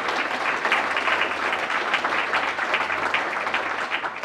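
Seated audience applauding, many hands clapping steadily.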